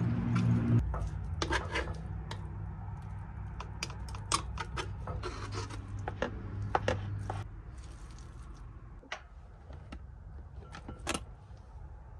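Kitchen handling sounds: irregular clicks and light knocks as tongs lift raw chicken pieces off a wooden cutting board into a bowl, over a low steady hum that stops about two-thirds of the way in.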